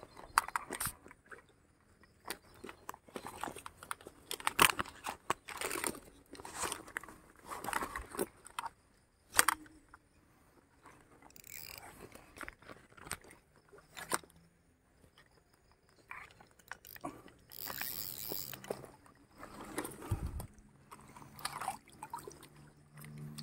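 Handling noise close to the microphone while a small fish is landed on a fly rod: irregular clicks, knocks, scrapes and crackles, with a few sharp knocks standing out.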